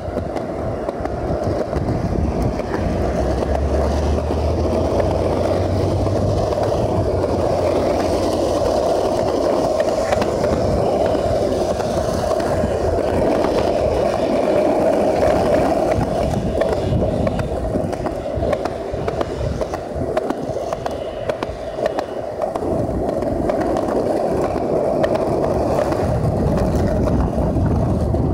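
Skateboard wheels rolling steadily, first over a concrete sidewalk and then over rough asphalt road, giving a continuous rumble with light clicks through it.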